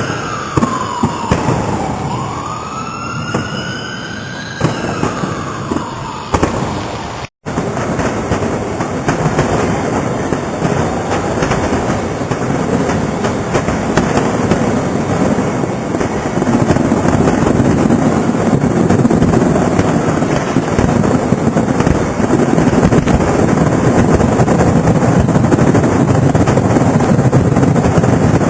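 An emergency-vehicle siren wailing slowly up and down over scattered fireworks pops. After a brief dropout, a dense, unbroken barrage of fireworks bangs and crackle takes over, growing louder about halfway through.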